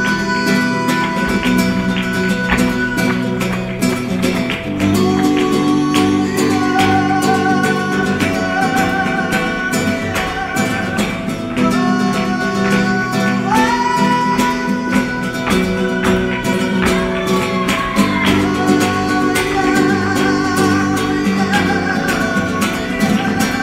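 Flamenco music: a singer's held, wavering notes over guitar, with sharp percussive strokes throughout.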